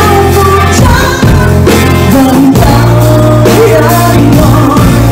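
Pop music with a steady beat and bass line.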